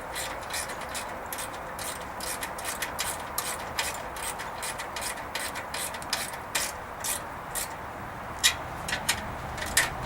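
A run of sharp mechanical clicks, about three or four a second and unevenly spaced, over a steady hiss, with a few louder clicks near the end.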